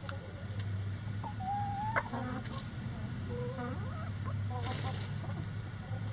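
Several chickens clucking, with a few drawn-out calls among the short ones and a sharp tap about two seconds in. A steady low hum runs underneath.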